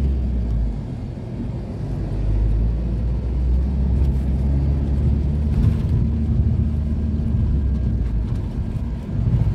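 Engine drone and road rumble of a moving vehicle heard from inside the cabin: a steady low rumble that dips briefly about a second in.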